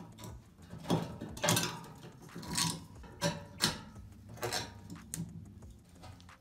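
Screwdriver unscrewing a chrome bathtub overflow plate and drain lever, then the plate being worked loose by hand: a string of short metallic clicks and scrapes, roughly one a second.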